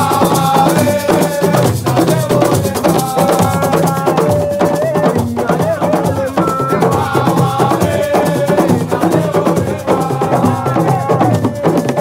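Assiko music: a steady, fast percussion rhythm on hand drums and shakers, with voices singing a melody over it.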